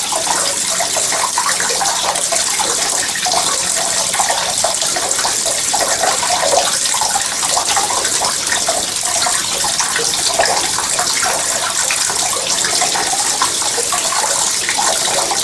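Small statue fountain: a stream of water splashing steadily into a garden lily pond.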